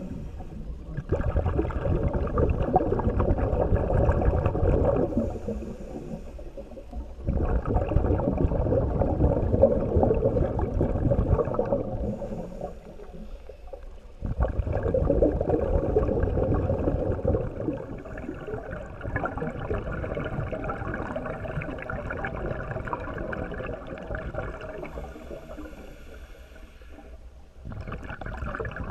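A diver's breathing heard underwater through the camera housing: rushing surges of exhaled bubbles every six or seven seconds with quieter pauses between, weaker in the second half.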